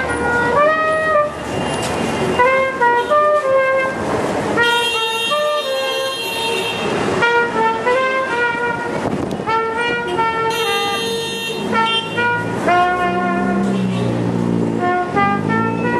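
A trumpet playing a melody note by note, with car horns honking over it twice: a long blast of over two seconds about five seconds in, and a shorter one about ten and a half seconds in. Street traffic runs underneath.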